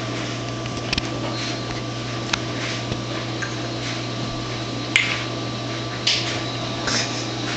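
Steady low electrical hum of a kitchen appliance, with a few small clicks and knocks scattered through it, the sharpest about five seconds in.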